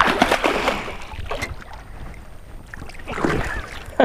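Largemouth bass thrashing and splashing at the water's surface beside the boat as it is landed by hand: one splashy burst at the start and another about three seconds in.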